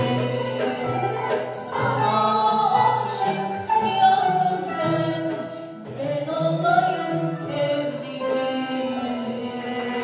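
Mixed choir of men's and women's voices singing a Turkish art music song in long held lines, accompanied by ud and kanun.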